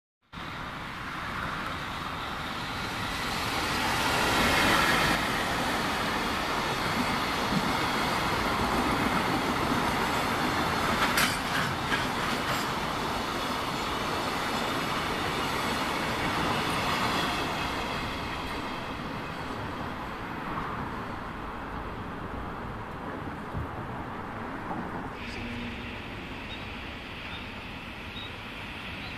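Freight train of empty container flatcars passing close by, its wheels clacking over the rail joints with a steady rushing rumble.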